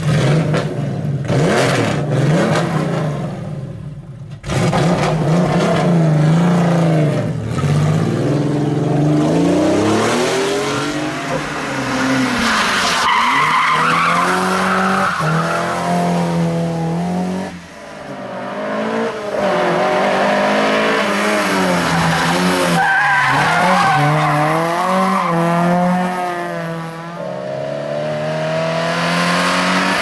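Rally cars driven hard through a tight bend one after another, first a Porsche 911, later a Mercedes 190E saloon. Each engine revs high, drops in pitch on lift-off and climbs again as the car accelerates out, with tyre squeal as they slide.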